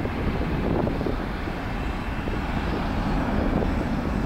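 Airbus A300 freighter's twin jet engines at climb power, a steady low rumble heard from behind as the plane climbs away after takeoff.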